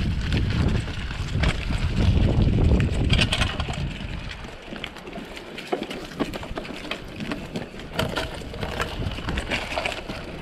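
Mountain bike riding along a rough dirt trail: wind buffets the microphone for the first few seconds, then the bike rattles with many quick clicks and knocks over the ground.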